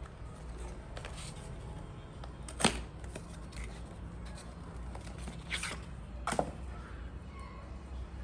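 Product packaging being handled and opened by hand: scattered light ticks and rustles, with a few sharp clicks or taps, the loudest about two and a half seconds in and two more around six seconds, over a steady low hum.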